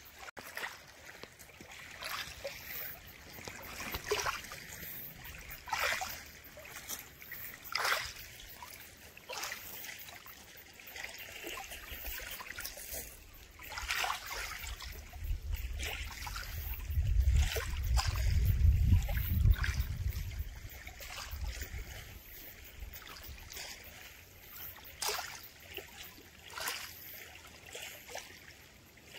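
Small wavelets lapping on a pebble-and-shell shore, with soft splashes every second or two over a steady wash. A low rumble swells and fades in the middle.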